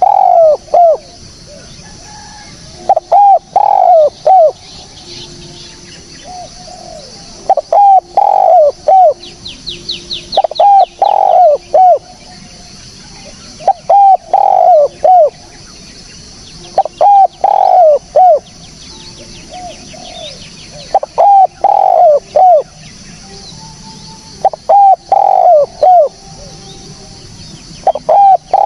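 Spotted dove (tekukur) cooing: phrases of three or four loud coos, repeated about every three and a half seconds, eight times. A second, smaller bird gives a fast high trill about ten seconds in.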